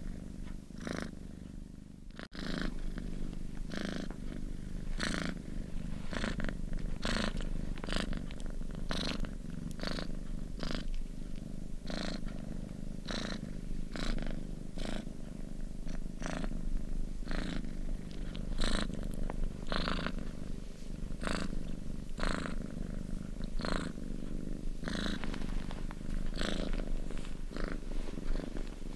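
Domestic cat purring steadily: a low rumble with a breathy swell about once a second as it breathes in and out.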